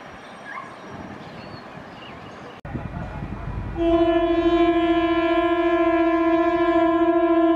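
Electric multiple-unit (EMU) local train approaching with a low rumble, then sounding its horn: one long, steady single-note blast that starts a little over a second after the rumble and keeps going.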